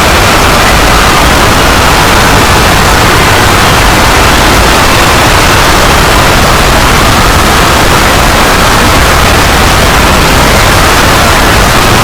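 Loud, steady static-like noise at every pitch at once, unchanging throughout, with no separate blasts or beats.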